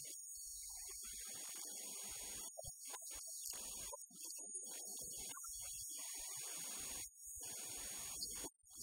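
A man talking, faint and muffled, over a steady electrical hum and hiss.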